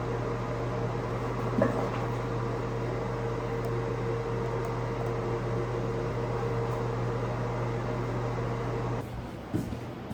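Steady electric hum of a running household appliance motor, which cuts off suddenly about nine seconds in. A brief squeak sounds about one and a half seconds in.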